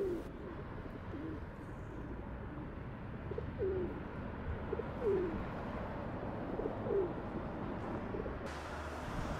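A pigeon cooing: a series of short, low, falling coos spread over several seconds, over a steady low background rumble.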